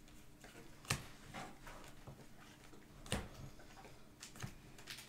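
Faint clicks and taps of glossy football trading cards being flipped through by hand, card against card. The two sharpest clicks come about a second in and just after three seconds.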